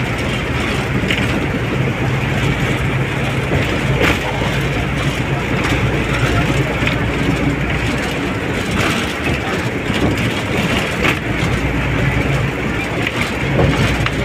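Steady running noise of a moving vehicle, heard through an open side window, with a low hum and a few sharp clicks.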